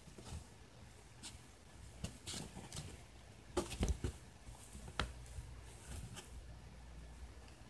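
A kitten's claws scratching and rustling the torn fabric rim of a cat basket. The sound comes as faint scattered scrapes, with a louder burst of scratching about three and a half seconds in and a sharp scrape at about five seconds.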